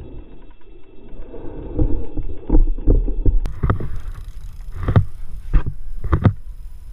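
Fishing boat at sea: a low rumble with wind on the microphone and a series of irregular thumps on the deck or hull.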